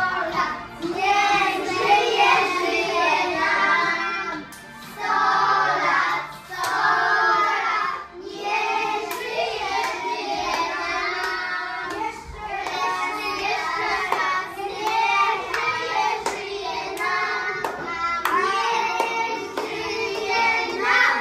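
Children singing a birthday song together with clapping, in sung phrases with short pauses, as the cake with its lit candle is brought to the table.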